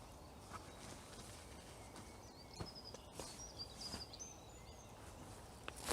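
Faint birdsong: short high chirps and trills from a small bird, about two seconds in and running for a couple of seconds, over quiet woodland background with a few faint clicks.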